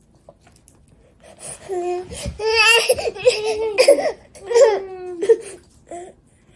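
Laughter and high-pitched vocalising in bursts, starting about a second and a half in and lasting about four seconds.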